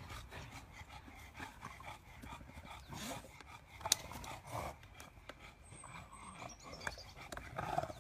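English bulldogs panting while they play, with one short sharp click about four seconds in.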